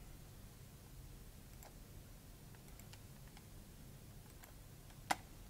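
Faint computer mouse clicks over a low steady room hum, with one sharper click near the end.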